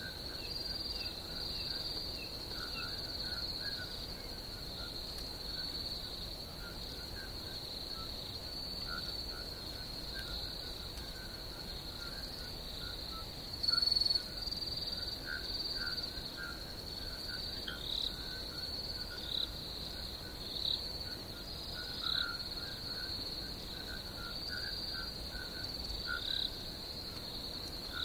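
Night insect chorus: a steady high-pitched chirring with scattered lower, shorter chirps throughout, and one brief louder call about halfway through.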